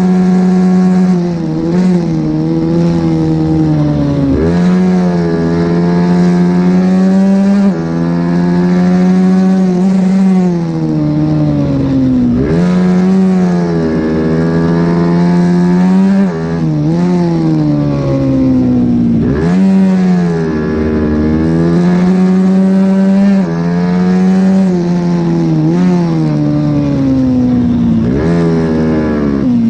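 Mini racing motorcycle's small engine run hard at high revs, climbing in pitch under throttle and falling away into corners, with sudden dips at gear changes and quick blips, over and over through the lap.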